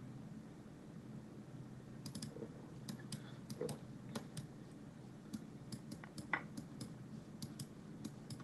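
Faint, irregular clicks of a computer mouse, often in quick clusters, over a low steady hum.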